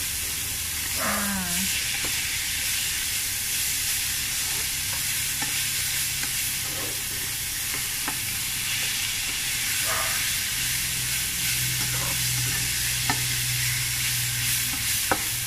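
Pounded cassava leaves and pea eggplants sizzling in a granite-coated frying pan as they are stirred with a spatula, with faint scrapes and taps of the spatula on the pan. A steady low hum runs underneath.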